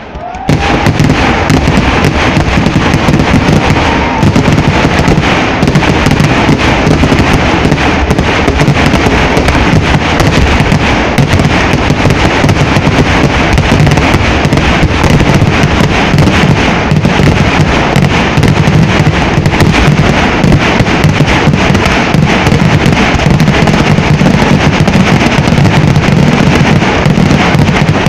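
Kerala temple-festival fireworks (vedikettu) going off in a dense, rapid barrage. The bangs and crackles follow so closely that they merge into one continuous rumble, starting abruptly about half a second in.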